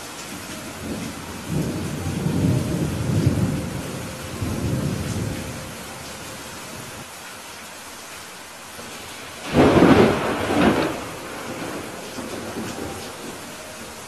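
Steady rain with thunder: a rolling rumble from about one to five seconds in, then a sudden loud thunderclap just before ten seconds that is the loudest sound, dying away over about a second and a half.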